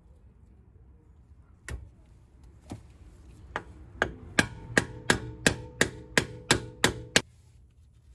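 Hammer tapping the metal dust cap onto a Mercedes S550's new front wheel hub: about a dozen ringing strikes, a few spaced out at first, then quickening to about three a second before stopping.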